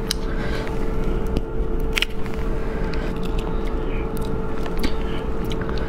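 Steady road-traffic noise from passing cars with a constant hum under it, and a few sharp clicks and cracks, the sharpest about two seconds in, as a spicy braised rabbit head is pulled apart by hand.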